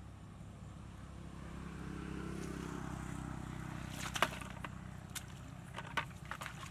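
A motor hums steadily in the background, growing louder about two to three seconds in. Over it come a few short sharp splashes and knocks, the loudest about four seconds in, as a plastic bucket scoops and throws water in a muddy ditch.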